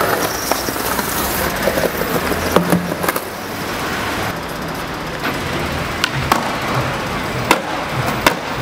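Skateboard wheels rolling over rough paving, with several sharp clacks of the board popping and landing.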